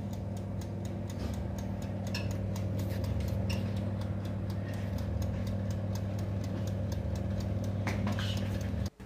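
Countertop electric oven running: a steady low hum with its mechanical timer dial ticking evenly as it counts down. The sound cuts off abruptly near the end.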